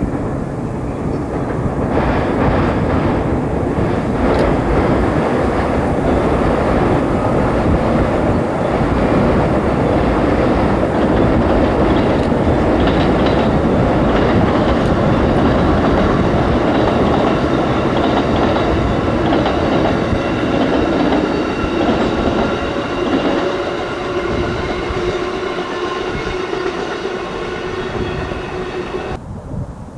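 Passenger train passing at speed on the Northeast Corridor, its wheels clattering over the rails in a loud, steady rush with a faint whine. The sound eases after about two-thirds of the way through and drops off abruptly near the end.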